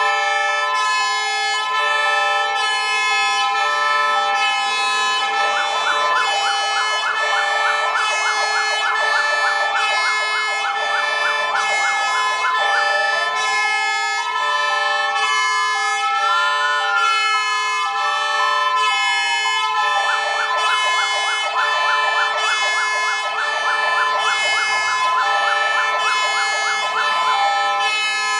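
Fire-engine sirens sounding together: a steady alternating two-tone hi-lo runs throughout, joined by a fast yelp for stretches. In the middle a slow wail rises and falls once.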